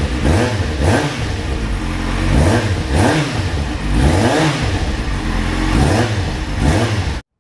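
Kawasaki Z750 inline-four motorcycle engine being revved over and over, the pitch rising and falling with each blip of the throttle; the sound cuts off suddenly near the end.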